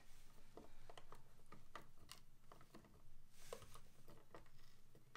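Faint, irregular clicks and creaks of a hand Phillips screwdriver turning a wood screw through a plastic skateboard rail into the wooden deck.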